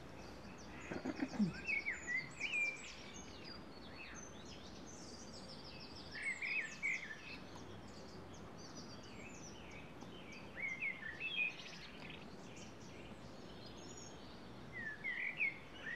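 Songbirds chirping and twittering in short high bursts every few seconds, over a steady low background noise. A brief low sliding sound comes about a second in.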